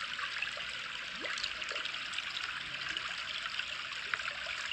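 Running water trickling steadily, an even hiss with small splashes and bubbling ticks scattered through it.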